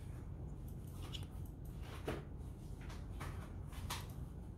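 A few faint light ticks of a plastic phone charger being handled, over a steady low hum.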